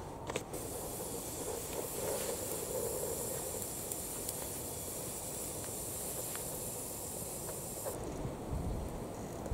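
A newly lit wood-and-paper fire in a steel rocket stove hissing steadily, with a few faint crackles. The hiss stops suddenly near the end and a brief low rumble follows.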